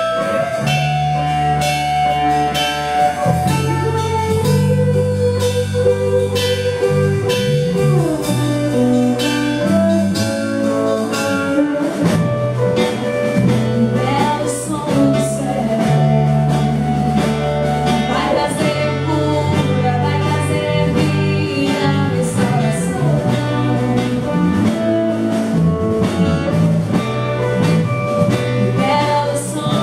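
Christian worship song performed by a band: singing over guitar with a steady beat.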